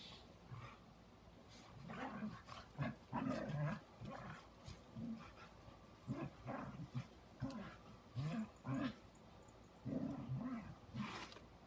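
Two dogs play-fighting and growling at each other in many short, low bursts, mostly from about two seconds in.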